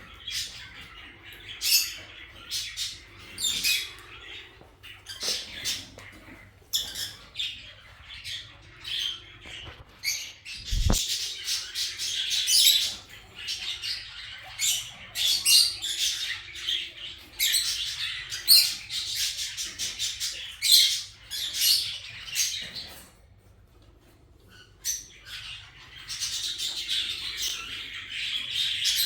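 Kakariki parakeets chattering with rapid, high squawks and chirps that come in quick runs and briefly pause about two-thirds of the way through. One short, dull thump comes about eleven seconds in.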